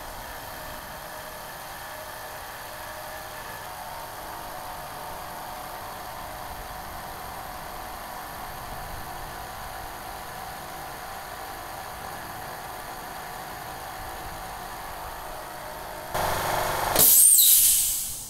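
Lincoln LCS50 twin-head oil-free 'silent' air compressor running with a steady hum as it fills its tank from empty. Near the end it gets louder, then cuts out with a short, loud hiss of released air as the tank reaches full pressure.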